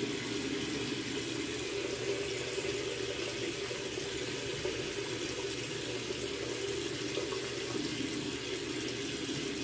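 Cold-water tap running steadily into a bathroom sink.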